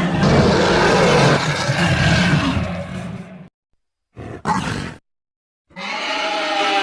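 Made-up creature sound effect for a zombie, infected Argentinosaurus sauropod: a long, rough roar that stops about three and a half seconds in, a short call just after four seconds, then another roar starting near six seconds. Each call ends abruptly in dead silence.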